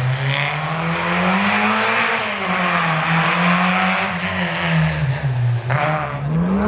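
Peugeot 205 rally car's four-cylinder engine at high revs on a stage. The pitch climbs and falls with throttle and gear changes, dips sharply about five and a half seconds in, then climbs again near the end.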